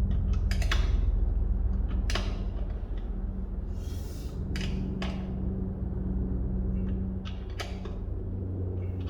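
Low-noise oil-less air compressor running with a steady low hum, with a few sharp clicks and knocks over it and a brief hiss about four seconds in.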